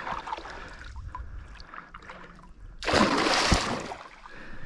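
A hooked peacock bass (tucunaré) thrashing at the surface beside a kayak while being played on rod and line: faint water lapping, then one loud splash about three seconds in that lasts about a second.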